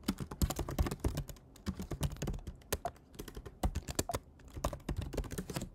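Typing on a computer keyboard: a run of quick, uneven key clicks with a few brief pauses.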